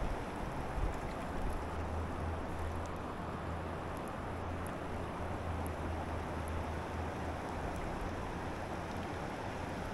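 Steady rush of flowing river water around a wading angler, with a low, even rumble underneath that strengthens about a second and a half in.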